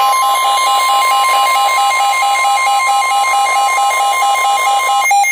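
Weather radio alert tones: a steady 1050 Hz warning alarm tone, with a fast pulsing alarm beep sounding over it. The steady tone cuts off about five seconds in while the pulsing beep carries on. The tones mark the start of a new warning broadcast.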